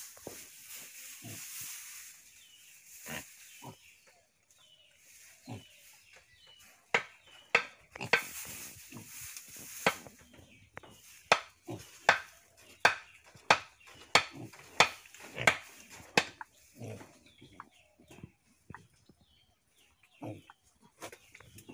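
A piglet grunting in short, repeated grunts, a few scattered at first, then a quick run of about one every half second or so in the middle.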